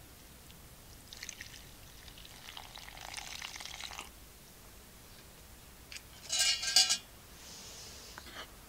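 Hot water poured from a small metal pot into flour in a wooden bowl, a soft trickle lasting about three seconds. About six seconds in, a short, loud clatter with a ringing tone.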